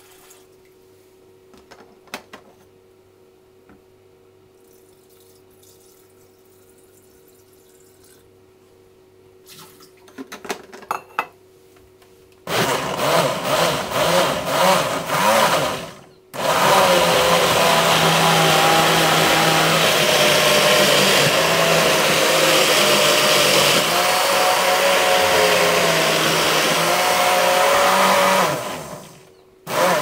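Countertop jug blender puréeing cooked vegetables and water into soup: a quick series of short pulses about twelve seconds in, then a steady run of about twelve seconds that winds down near the end. Before it starts there is only a faint hum and a few light clicks.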